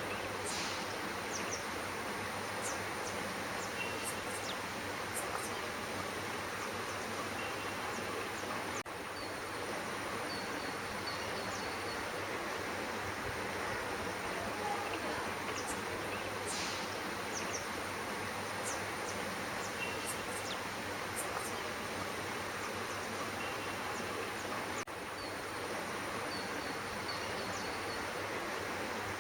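Steady outdoor background hiss, with a few faint, short, high-pitched chirps scattered through it.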